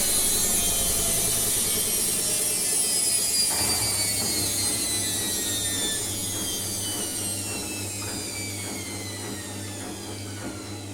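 Hotpoint washing machine winding down from its spin cycle: the motor and drum whine falls steadily in pitch and grows quieter as the drum slows.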